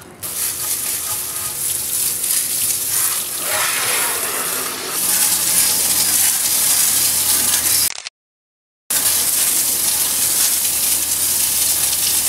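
Pressure washer spraying a steady jet of water against a J24 sailboat's epoxy-painted hull bottom, rinsing off the oxalic-acid cleaner: a loud continuous hiss with a faint low hum beneath it. The sound cuts out completely for about a second just after the middle.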